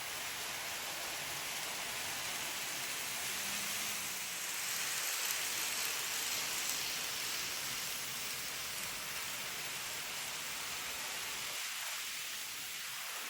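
N gauge model train running on layout track: a steady rolling hiss that swells a little about five seconds in, then eases.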